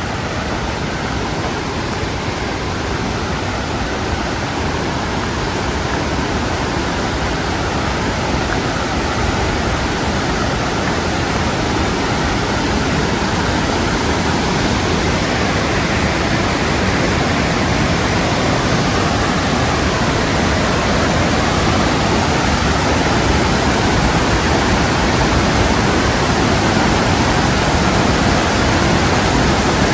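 Waterfall roar: a steady rush of falling water, growing gradually louder.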